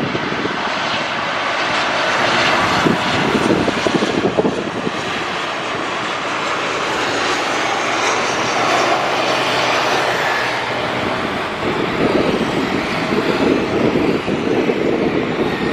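Lion Air Boeing 737-900ER landing, its CFM56-7B turbofans giving a loud, steady jet noise through the final approach, touchdown and rollout on the runway.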